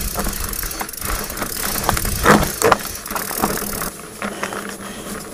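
Diamondback Mason Pro hardtail mountain bike rolling over a rocky dirt trail: the rear hub's freewheel ratchet clicking as it coasts, with rattles and knocks from the bike as the tyres hit rocks. Two louder knocks come about two and a half seconds in.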